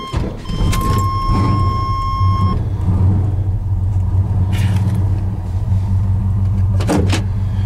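Chevrolet C30 truck's 383 stroker V8 running at idle with a steady low rumble, which comes up suddenly at the very start. A steady high electronic tone sounds over it for the first couple of seconds, and there is a single sharp click about seven seconds in.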